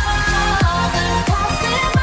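Background electronic pop music with a steady kick-drum beat, in an instrumental stretch between sung lines.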